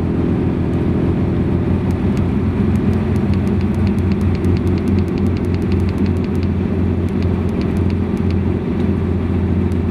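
Steady low drone of a running DAF truck with its refrigeration unit working, with a quick run of light ticks, about five or six a second, starting about two seconds in and stopping near the end.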